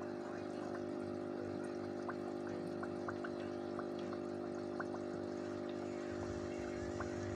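Aquarium water pump humming steadily, with water trickling and small scattered drip-like ticks.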